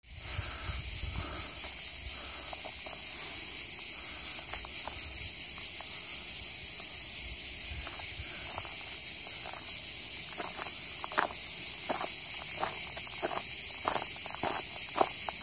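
A steady, high-pitched chorus of insects, with footsteps on a dirt trail joining it about ten seconds in, roughly three steps a second.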